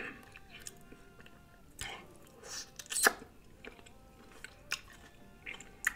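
A person chewing lemon-squeezed green grapes in the mouth: scattered soft wet smacks and short mouth clicks.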